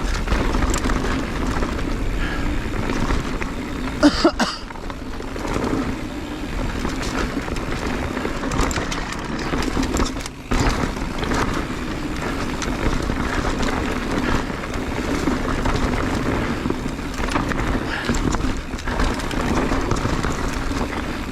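Mountain bike running fast down a rocky dirt trail: steady rumble and rattle of tyres, bike and wind noise, with a sharp loud clatter about four seconds in.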